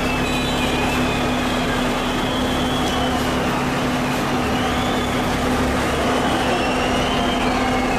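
Heavy engine of an armored police vehicle running with a steady low hum under a constant noisy rush.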